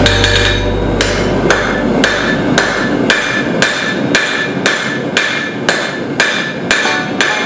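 Blacksmith's hand hammer striking hot steel on an anvil in a steady rhythm, about two blows a second. Each blow leaves the anvil ringing.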